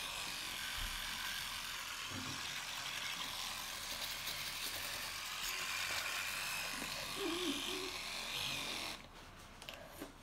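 Children's electric toothbrush buzzing steadily in the mouth while teeth are brushed; it stops near the end.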